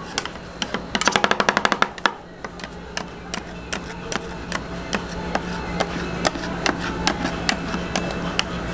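Metal spatula blades striking and scraping on a frozen steel cold plate as rolled-ice-cream base is chopped and spread: a fast run of sharp chopping strikes, about a dozen in a second, about a second in, then slower scattered taps. A steady low hum sits underneath from about two seconds in.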